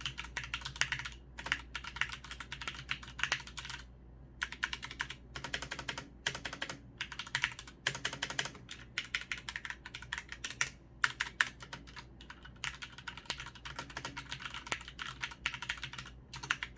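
Fast typing on a Tesoro Gram MX One mechanical keyboard with Cherry MX Red switches and PBT keycaps. Rapid runs of keystrokes come in bursts, broken by short pauses every few seconds.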